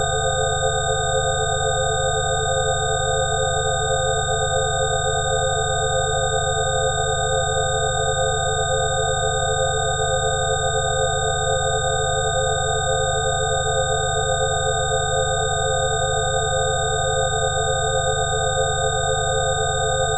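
A 'healing frequency' tone track: several steady electronic tones layered over a low drone, some of the middle tones pulsing quickly. Nothing changes throughout.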